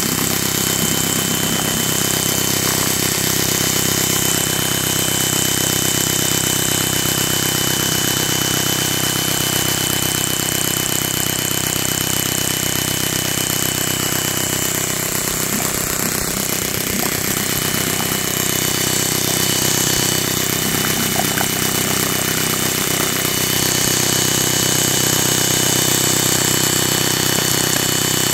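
Echo1 M134 airsoft mini-gun firing continuously on its electric motor: a steady, unbroken mechanical buzz with a thin high whine over it.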